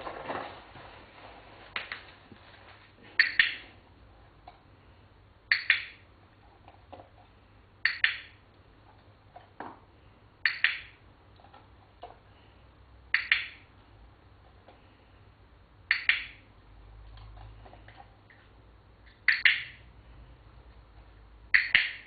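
Dog-training clicker clicked eight times, about every two and a half seconds, each click marking the dog for standing still during shaping. Faint small handling sounds fall between the clicks.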